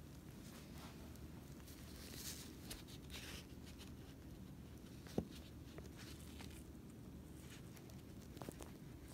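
Quiet room tone with a low steady hum and faint rustling of handling about two to three seconds in. A single sharp click comes a little past halfway, and a few softer ticks follow near the end.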